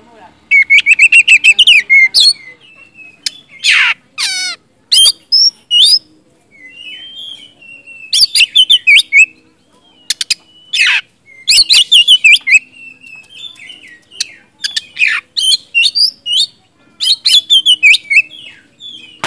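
Oriental magpie-robin singing in loud, varied phrases of rapid trills, chirps and sweeping whistles, a new phrase every second or two with short pauses between.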